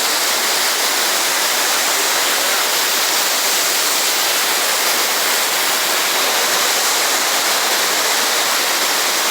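Waterfall, a loud steady rush of falling water.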